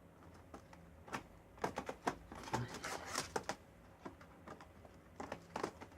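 Plastic clicks and taps of a laptop keyboard being pressed down into the laptop's casing, in irregular small clusters.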